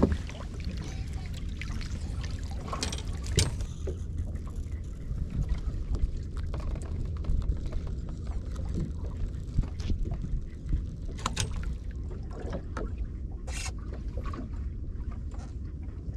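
Water sloshing against the hull of a small boat drifting at sea, under a steady low rumble of wind, with a few sharp knocks and taps on the boat.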